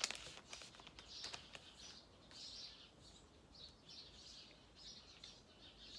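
Faint birds chirping off and on, with a few light clicks near the start.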